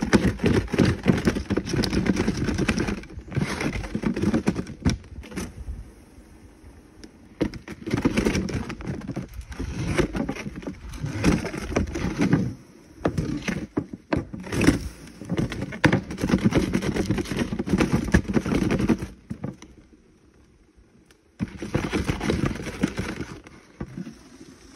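Small plastic esky being rolled back and forth on a concrete floor, the drink cans inside sliding and knocking against its walls as they are chilled in liquid nitrogen. The rolling comes in spells of a few seconds with short pauses, and there is a quiet stretch about twenty seconds in.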